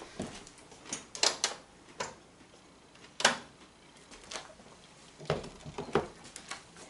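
Irregular clicks and knocks of cookware and utensils being handled, with one sharper knock about three seconds in and a cluster of clatter near the end as a saucepan is taken by its handle.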